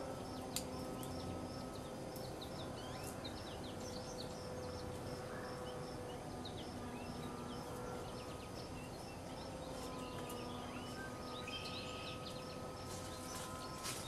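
Outdoor ambience of birds chirping, with a high call repeating evenly about twice a second, over a steady low hum.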